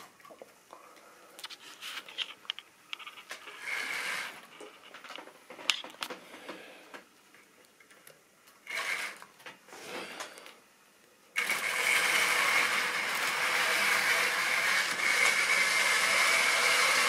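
Clicks and light knocks of model railway wagons being handled and coupled on the track, then about two-thirds of the way through a small electric model-locomotive motor starts suddenly and runs steadily, whirring as the train runs along the rails.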